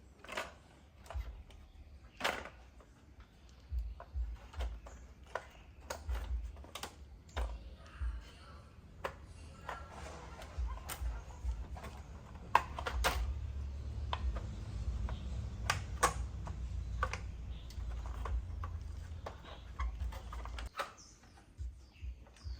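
Irregular light clicks and taps of small tools and parts being handled during amplifier repair work. A low rumble runs under the clicks from about halfway through until near the end.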